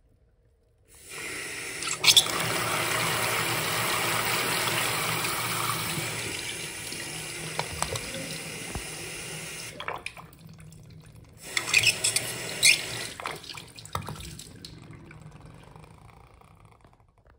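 Miniature model Saxonette toilet flushing: water rushes into the bowl with a splash at the start and runs for about nine seconds, fading. After a short pause a second, shorter rush of water with splashes follows, then trails off.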